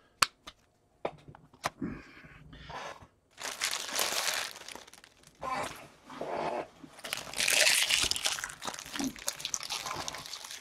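Plastic trading-card packaging crinkling and rustling in several bursts as it is handled, after a few sharp clicks and taps, the loudest just after the start.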